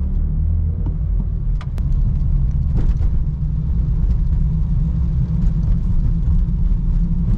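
BMW F82 M4's S55 twin-turbo straight-six, fitted with a carbon Eventuri intake and charge pipe, running steadily at low revs: an even low rumble with no rise in pitch.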